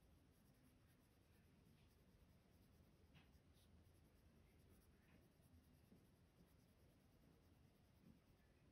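Faint scratching of a Prismacolor colored pencil shading on paper, in short back-and-forth strokes.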